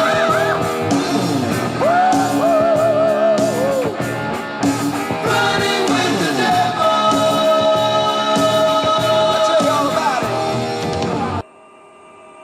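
A recorded song played back as a test sample: a singer holding long notes with vibrato over a steady beat and guitar. The song cuts off suddenly near the end, leaving a much quieter passage that slowly grows louder.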